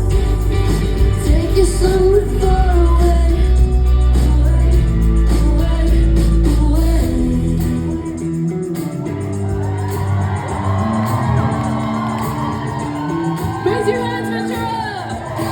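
Live pop band performance with sung vocals over the instruments. The deep bass drops out about eight seconds in, leaving the singing and higher instruments, with shouts from the audience.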